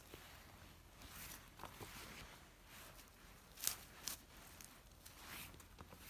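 Hands rustling through forest leaf litter and twigs, with a few sharper crackles.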